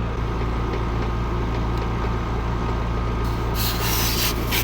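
Air-conditioning condensing unit running with a steady low hum. About three seconds in comes a hiss lasting about a second, with a few shorter hisses near the end, as a T adapter is screwed onto the refrigerant service port.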